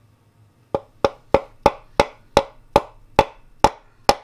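Piston mallet tapping a piston down its bore in a Ford 5.0 V8 block, driving the connecting rod onto the crankshaft journal: a steady run of about ten sharp knocks, roughly three a second, beginning about a second in.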